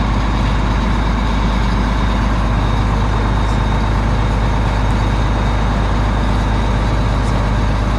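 Combine harvester engine running steadily: a constant low hum with an even wash of mechanical noise over it.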